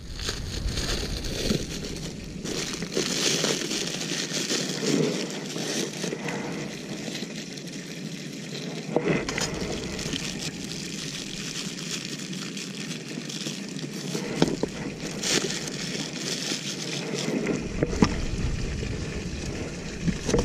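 Thin plastic bag crinkling and rustling as hands squeeze food out of it, with a few sharp clicks from the handling.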